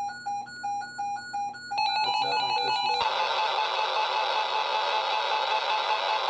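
Weather alert radios going off for an incoming NOAA Weather Radio warning: a pitched alarm beeps about three to four times a second, a second radio's higher beeping joins about two seconds in, and about a second later more alarms pile in, so the tones merge into one steady, dense alarm din.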